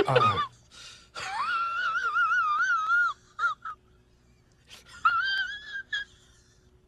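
A husky-type dog whining in a long, high, wavering call, then a shorter one about five seconds in.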